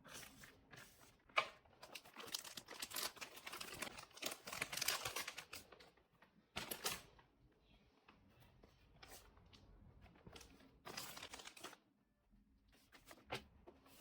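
Blind-box packaging being crinkled and torn open in several bursts: a long stretch of crackling and tearing at first, then shorter bursts with quieter gaps between them.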